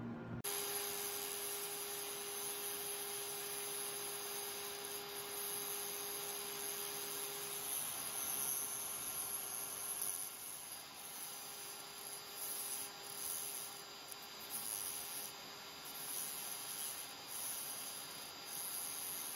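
A cheap $5 Harbor Freight rotary tool with a small cut-off disc grinding at a chromoly head stud: a steady motor whine with a hissing grind that rises and falls as the disc bites. The tool is struggling to cut through the hard stud.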